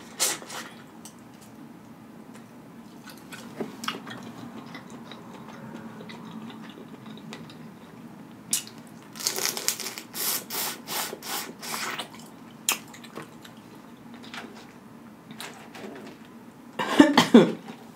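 Eating boiled crawfish close to the microphone: wet sucking and smacking at the shells, with shells cracking and peeling in a quick run of wet, crackling clicks about halfway through. A short louder sound comes near the end.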